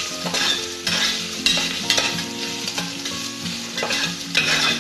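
Slotted metal spatula stirring grated coconut, cashews and curry leaves frying in ghee in an aluminium pressure cooker: a sizzle with repeated scrapes of the spatula against the pan.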